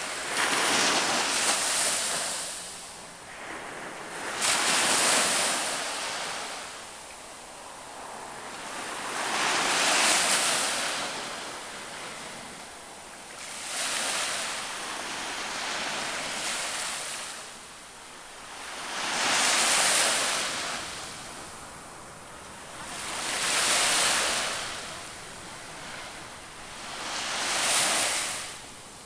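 Atlantic surf breaking on a rocky shore, each wave's crash swelling and fading again about every four to five seconds.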